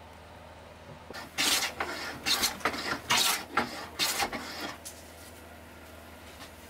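Hand plane taking quick shavings off a cherry board, a run of scraping strokes starting about a second in and stopping after about four seconds.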